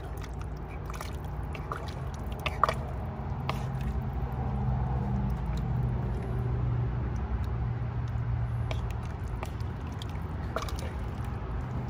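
A wooden spoon stirring thick stew in a cast-iron camp oven: liquid sloshing and squelching, with scattered light knocks of the spoon against the pot, over a steady low hum.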